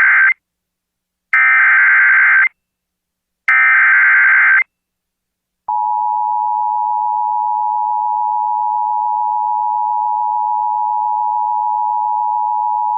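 Emergency Alert System SAME header: the end of one burst of warbling digital data tones, then two more full bursts about a second long, two seconds apart. About six seconds in, the EAS two-tone attention signal starts, a steady piercing dual tone held to the end, announcing the warning to follow.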